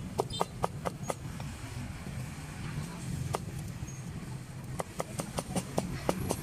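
Meat cleaver chopping roast pork on a thick round wooden chopping block: quick sharp knocks, about five a second, in two runs with a pause of a few seconds between, over a low steady hum of street traffic.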